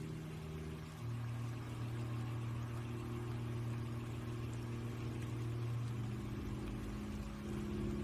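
Soft background score of low sustained chords, changing about a second in and again near six seconds.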